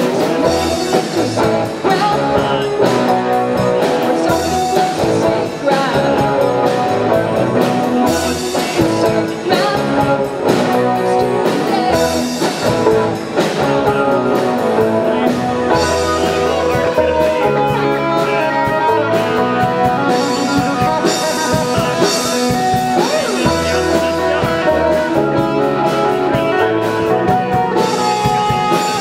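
Live rock band playing: electric guitar, bass guitar, keyboard and drum kit together, through PA speakers.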